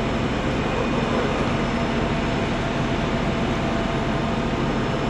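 A steady, unchanging mechanical rumble and hum of vehicles, with faint steady tones.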